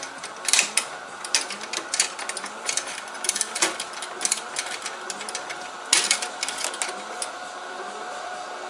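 Irregular clicking and clacking of hard computer parts being handled and fitted together, with the sharpest clicks about half a second in and around six seconds in.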